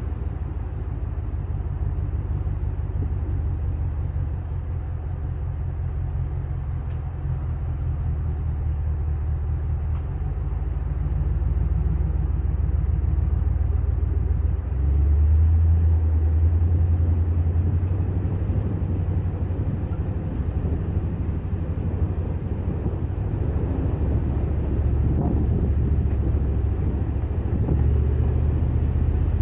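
Ford Raptor pickup truck's engine running steadily as it drives along an off-road trail, a low drone that steps up and gets louder about halfway through and again near the end.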